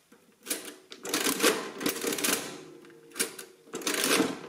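Victor Series 2 adding machine being worked: keys clicked down to enter a number and the hand lever pulled, the adding and printing mechanism clattering in several bursts.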